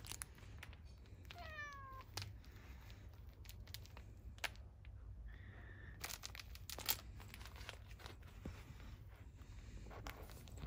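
A British Longhair cat meows once, a short call falling in pitch, about a second and a half in. Later come scattered clicks and rustles as it paws at a cloth toy.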